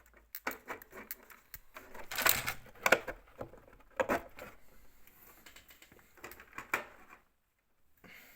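Small hard objects clicking and clattering on a tabletop while someone rummages through them for a part, with a few louder knocks about two, three and four seconds in.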